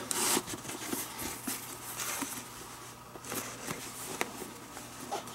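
Leather lace being pulled through the lace holes of a leather catcher's mitt: scratchy rubbing in short strokes, with small clicks as the glove leather is handled.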